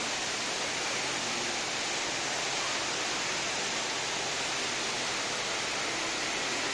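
Indoor waterfall: a steady, even rush of falling water.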